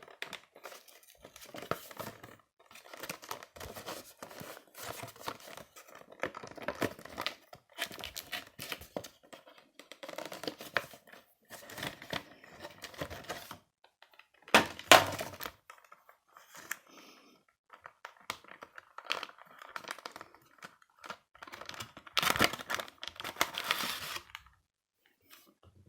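Packaging being unwrapped by hand: irregular crinkling and tearing, with a louder burst about fifteen seconds in and a busy stretch near the end.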